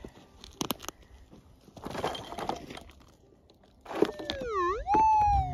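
Scraping and crunching of a pick working gravelly soil in a small dug hole. About four seconds in, a metal detector's target tone dips in pitch, swings sharply back up and holds a steady note, the loudest sound: the detector responding to a target in the hole.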